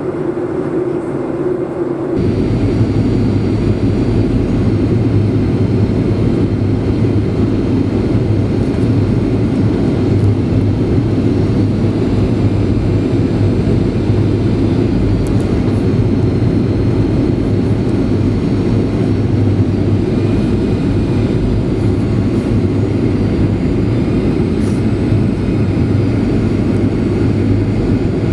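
Steady rumble of a Boeing 737-800's CFM56 jet engines and airflow, heard inside the cabin. It comes in abruptly about two seconds in and stays even from then on.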